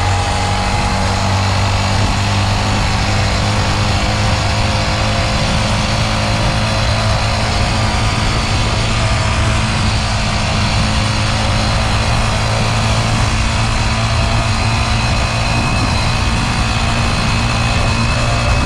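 Motorcycle engine running steadily while riding, under a constant rush of wind and road noise.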